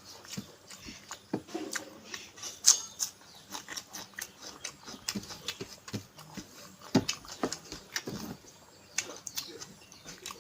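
A person eating close to the microphone: chewing with wet mouth clicks and lip smacks at an uneven pace, with a sharper smack near the end of the first third.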